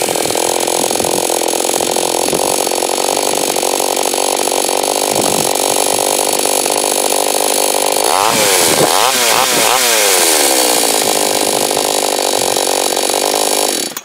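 Two-stroke petrol chainsaw running at high revs. The engine pitch dips and climbs back several times about two-thirds of the way through, then the sound cuts off abruptly at the end.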